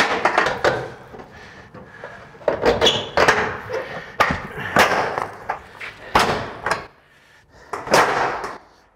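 Steel standing seam roof panel scraping and clanking as a cotter pin puller is dragged along its edge to pry it over the hidden clip until it locks in place: an irregular run of sharp metal knocks and scrapes with short quiet gaps.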